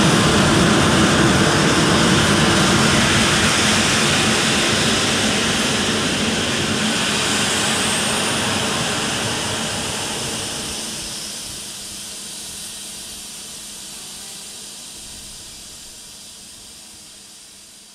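Cold-flow test of the Eridium nitrous oxide/ethanol liquid rocket engine: propellant rushing out through the injector and nozzle as a loud, steady hiss that fades gradually over the last several seconds.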